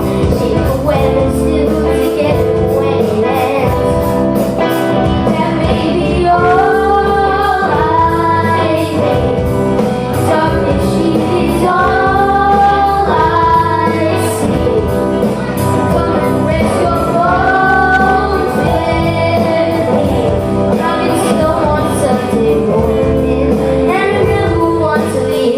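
Live cover band playing, with drums, bass guitar and electric guitar under a female lead singer's sung phrases.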